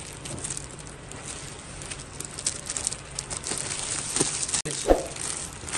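Clear plastic packaging crinkling and rustling as a wrapped fabric suit is handled and lifted out of its cardboard box, with one sharp bump near the end.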